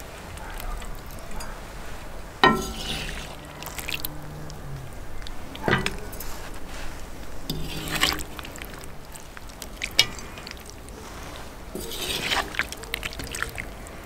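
Metal ladle scooping stew out of a cast-iron cauldron and serving it onto a plate, clinking against the pot about five times, with wet slopping of the stew in between. The first clink rings on for a couple of seconds.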